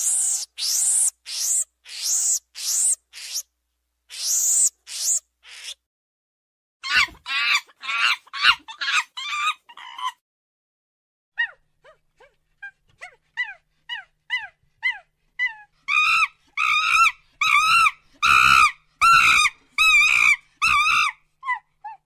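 Monkey calls in several short runs. First come high, shrill squeals, then a quick chattering run, then a few faint chirps. Near the end comes a loud series of calls at about two a second.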